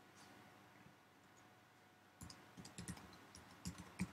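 Faint typing on a computer keyboard: a quick, uneven run of key clicks that starts about halfway through, after near silence.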